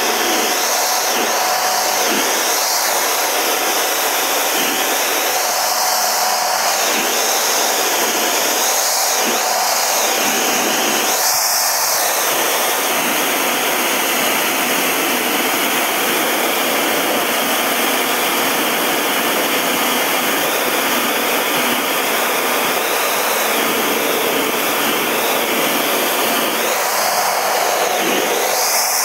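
Steady rushing noise of a Canadair CT-114 Tutor jet's J85 turbojet and slipstream, heard inside the cockpit. A slow swirling, phasing sweep comes and goes through the first dozen seconds and again near the end.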